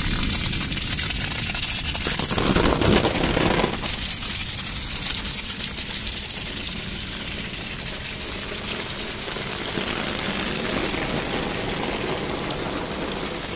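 Heavy rain falling on grass and ground, a steady hiss, with a stream of rainwater pouring off a roof and splashing onto the ground. A louder rush lasts about a second, around three seconds in.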